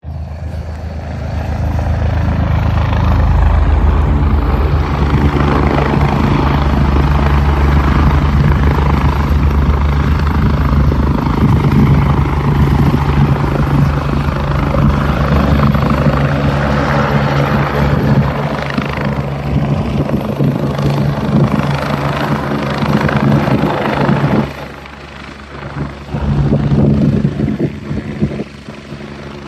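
Helicopter of the AgustaWestland A109 family with its main rotor and turbines running while it hovers low and comes in to land: a steady low rotor drone under a rushing turbine sound. It briefly drops in loudness twice near the end.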